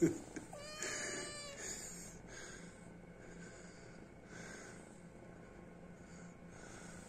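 A cat meows once, briefly, a little under a second in, and the rest is faint.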